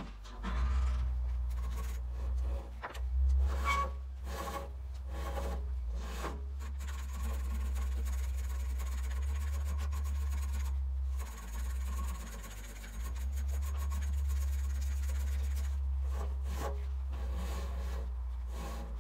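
Woodland Mills HM130 portable band sawmill running, its engine a steady low drone under the band blade sawing through air-dried softwood. Irregular knocks and scrapes come in the first several seconds, then an even cutting hiss that eases off twice briefly and fades near the end.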